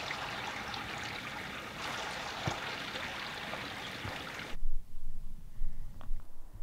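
Steady rushing of a mountain stream, which cuts off abruptly about four and a half seconds in, leaving low rumbling and a few deep thumps.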